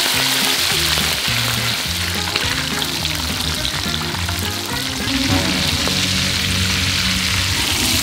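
Beaten egg and oysters poured into deep hot oil in a wok, sizzling and spitting steadily as the omelette deep-fries, over background music.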